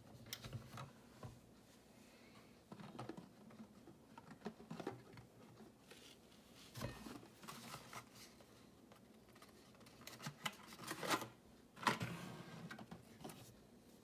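Hands handling Tassimo pod cartons and plastic T-disc pods: irregular cardboard and plastic rustling, tapping and clicking, loudest in a cluster of rustles near the end.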